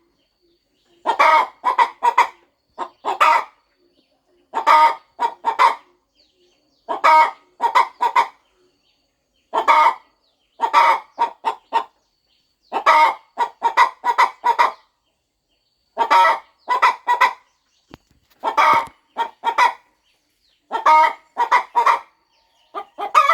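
A hen clucking in short runs of three or four clucks, each run about a second long, repeating every second or two with brief pauses between.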